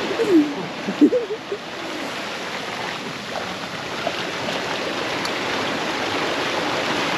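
Seawater surging and washing between shoreline boulders, a steady rushing, with one sharp tap about a second in.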